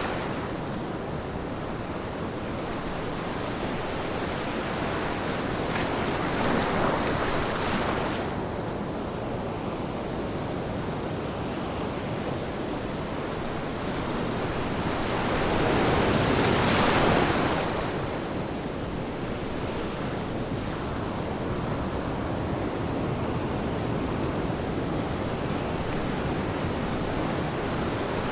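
Ocean waves breaking and washing up a beach, a steady surf hiss with two bigger waves swelling and falling away, one about six seconds in and a louder one past the middle.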